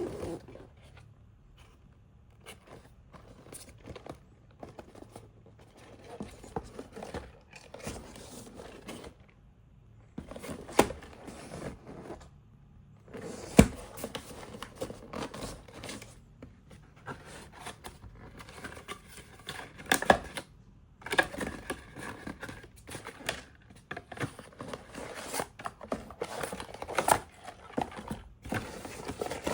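Hands opening and handling toy blind-box packaging: plastic wrap crinkling and tearing, cardboard scraping, and irregular sharp clicks and taps. The loudest taps come at about 11, 13.5 and 20 seconds in.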